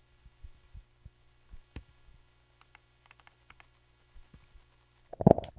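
Scattered faint clicks of a computer mouse and keyboard over a low steady hum, with one louder short thump near the end.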